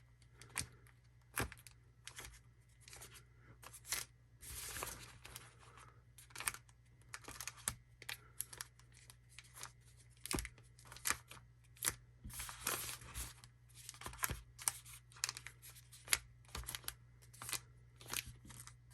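Sealed foil trading-card packs being shuffled by hand inside a cardboard hobby box: a string of irregular crinkles, rustles and short clicks.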